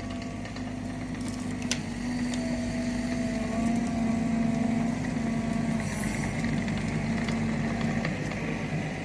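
An engine running steadily, holding an even hum.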